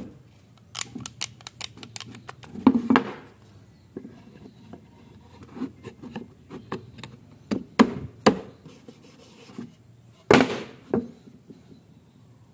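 Two wooden sticks knocking and rubbing together as they are worked into a notched cross joint, a string of sharp wooden clicks and knocks with scraping between them. The loudest knock comes about ten seconds in.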